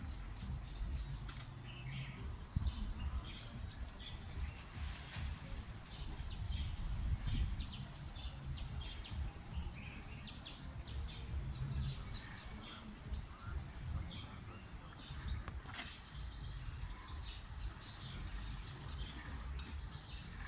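Small birds chirping on and off with many short high notes, a few longer buzzy notes near the end, over a steady low rumble.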